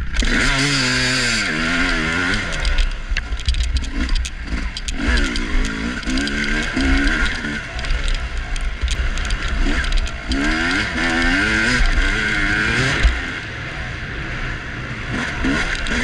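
Dirt bike engine revving hard under load, its pitch climbing and dropping in repeated sweeps as the rider works the throttle and gears. The engine jumps in loud at the start. A loose clicking rattle runs through it.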